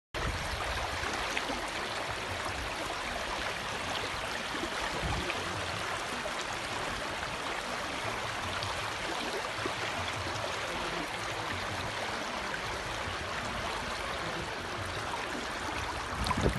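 Mountain stream flowing fast past the microphone, a steady, even rush of water.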